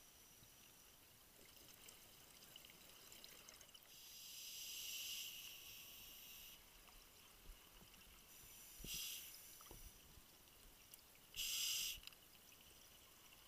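Scuba diver's breathing through a regulator, recorded underwater: a longer soft hiss about four seconds in, then two short, louder hissing breaths near nine and eleven and a half seconds in.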